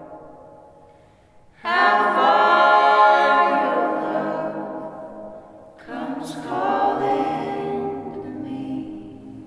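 A cappella folk quartet of men's and women's voices singing in close harmony. A low note hangs quietly at first, then the full group comes in loudly about one and a half seconds in and fades, and comes in again about six seconds in before fading near the end.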